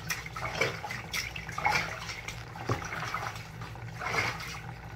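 Bathwater splashing and sloshing in a bathtub as a wet Rottweiler puppy moves and is washed: a few irregular splashes over a low steady hum.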